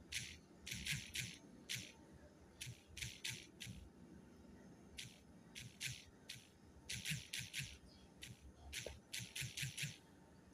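Faint, quick, irregular taps of typing on a smartphone's on-screen keyboard, coming in runs of several taps with short pauses between words.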